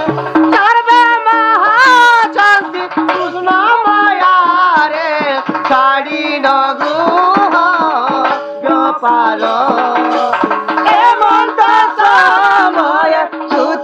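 Live Odia folk song: a singer's voice with ornamented, wavering melody over a held organ chord, with a barrel drum beating fast strokes underneath.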